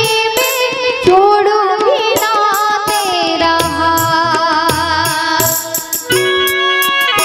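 Gujarati wedding farewell song (vidai geet): a singer's wavering melody over drum strokes and instrumental accompaniment. The voice stops about six seconds in and held instrumental notes carry on.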